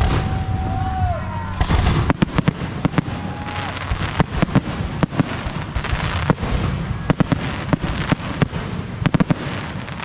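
Aerial fireworks display: a shell's whistle near the start, then from about two seconds in a fast barrage of sharp bangs and crackling shell bursts that keeps on through the rest.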